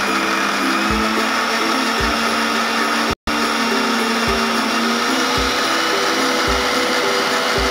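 Electric mixer grinder running steadily at speed, its stainless steel jar blending whole bilimbi (erumbampulli) fruit. The sound cuts out for an instant a little over three seconds in.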